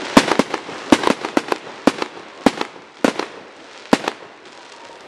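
Aerial fireworks bursting overhead: a rapid, irregular series of sharp bangs and cracks, some in quick clusters, thinning out after about four seconds.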